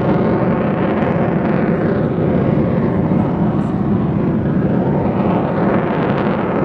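Avro Vulcan bomber's four Rolls-Royce Olympus turbojets, a loud, steady jet noise as the delta-wing bomber climbs steeply overhead.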